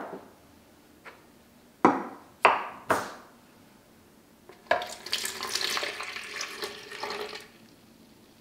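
Milk poured into a blender's plastic pitcher, a steady splashing pour lasting about three seconds in the second half. Three sharp knocks come a little before it.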